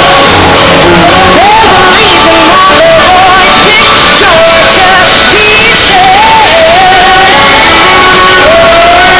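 Live country-pop band with a woman singing lead into a microphone, the crowd shouting and cheering along, recorded very loud from within the audience.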